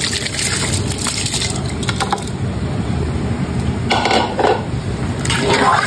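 Rice being tipped into a pot of boiling water and stirred: crackling, rattling and scraping, with a couple of louder rattles near the end, over the steady low rumble of the pot on the stove.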